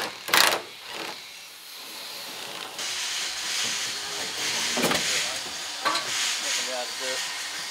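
An air impact wrench on a floor-plate bolt fires one short burst, then a steady hiss with a couple of sharp knocks.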